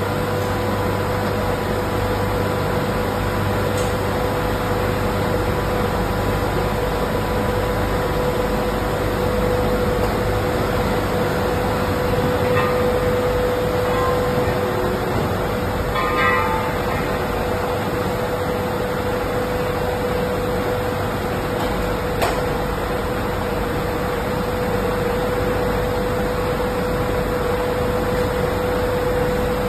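Hook-type shot blasting machine running with a steady loud drone and a constant hum, with a few metallic clanks as the hanging ductile iron valve bodies are handled, one ringing briefly about sixteen seconds in.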